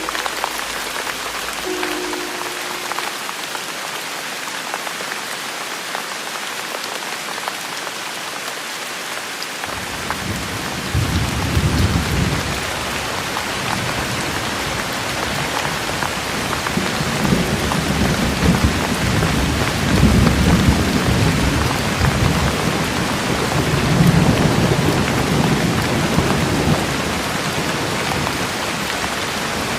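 Steady heavy rain hissing. About ten seconds in, a low rumble of rolling thunder sets in and swells and fades in several waves.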